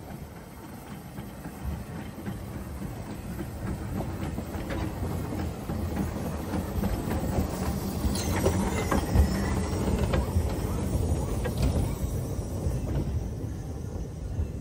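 Ffestiniog Railway steam locomotive Blanche, a small narrow-gauge Hunslet saddle tank, running light slowly past at close range. Its running gear clanks and its wheels click over the rail joints, loudest as it goes by about eight to ten seconds in.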